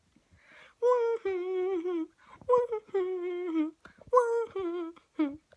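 A boy humming and singing wordless held notes with a wobbly vibrato, in three phrases that each start high and drop to a lower, wavering note, then a short final note.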